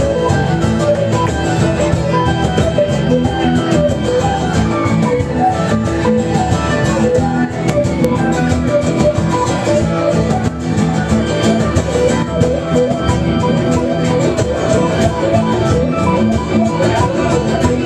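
Live band playing an instrumental passage, loud and steady throughout.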